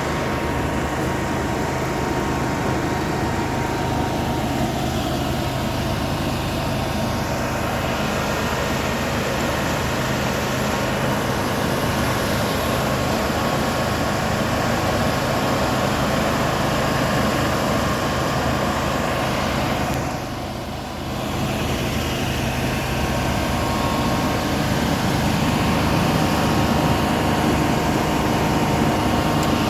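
Engine-driven machinery running steadily, with a constant drone. The level dips briefly about two-thirds of the way through, then comes back.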